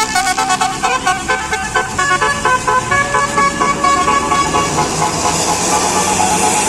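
Tour bus's basuri telolet horn, fed through roof-mounted trumpets, playing a quick melody of short stepped notes. A rushing hiss swells near the end.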